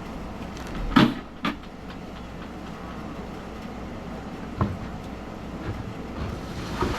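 A few sharp knocks and clatters, the loudest about a second in and another half a second after it, with two fainter ones later, over a steady background noise.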